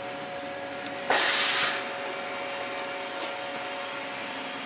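A short blast of compressed air, hissing for about two-thirds of a second about a second in, over a steady two-tone machine hum.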